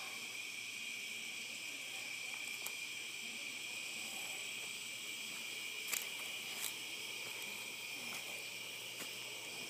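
Steady high-pitched chorus of insects, such as crickets, in the woods, with a few faint clicks, the loudest about six seconds in.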